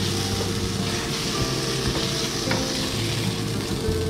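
A fish fillet sizzling as it fries in a nonstick frying pan while a wooden spatula scrapes and lifts it. A steady sizzle runs over a low, steady hum.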